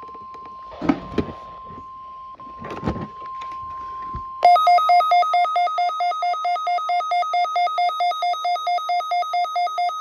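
NOAA Weather Radio's steady 1050 Hz warning alarm tone playing faintly through a radio, with a few short knocks. About four and a half seconds in, the weather radio receiver's own alert sets off: a loud electronic alarm pulsing between two pitches at about four beeps a second, the receiver being activated by the weekly test signal.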